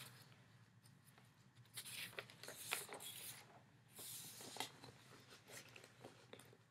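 Faint scratchy rustling with a few light clicks, the sound of small handling noises such as writing or moving paper, in two short stretches about two and four seconds in.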